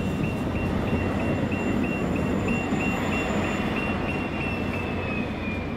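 Light rail tram passing, a steady low rumble, with a high warning beep repeating about three times a second whose pitch slides down near the end as the tram goes by.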